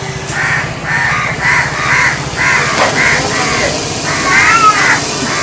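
Crows cawing in a rapid series of short harsh calls, about two a second, with a longer, louder caw near the end.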